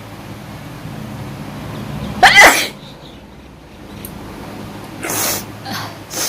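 A woman sneezes loudly once about two seconds in, a sneeze brought on by tickling the inside of her nose with a toothpick. A few shorter breathy bursts follow near the end.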